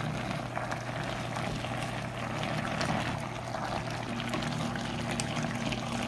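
Tuna and zucchini stew bubbling at the boil in a stainless steel pot while a wooden spoon stirs it, with a steady low hum underneath; a second, slightly higher hum joins about four seconds in.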